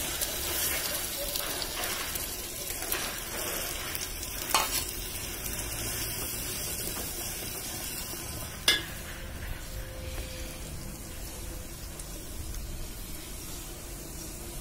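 Ground spice masala frying in hot oil with browned onion and ginger-garlic paste in a metal pot over a wood fire: a steady sizzle as it is stirred. Two sharp knocks, one about four and a half seconds in and a louder one just under nine seconds in.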